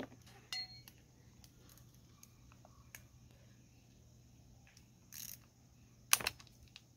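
Small metallic clicks and clinks of hand tools and parts while a lawnmower transmission is taken apart, with a ringing metal clink about half a second in, a brief scraping rustle around five seconds, and a sharp clack just after six seconds.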